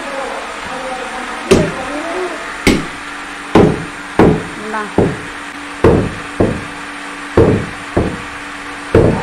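Heavy curved cleaver chopping goat meat and bone on a round wooden block: about ten hard, loud chops, irregularly spaced, roughly one every half-second to second.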